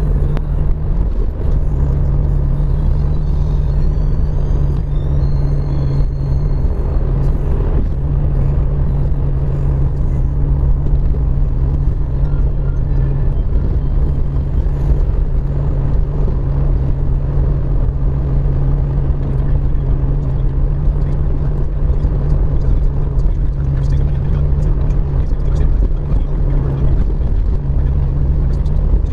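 Car driving: a steady low engine drone with road and tyre noise on wet pavement, heard from inside the cabin.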